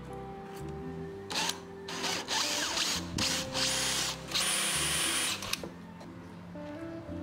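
Power drill boring shallow round recesses into plywood, running in several bursts with short pauses, with a high whine in the later bursts.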